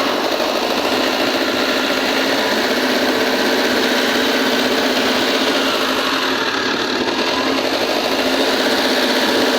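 Diesel engine of a Volvo 210D excavator running steadily.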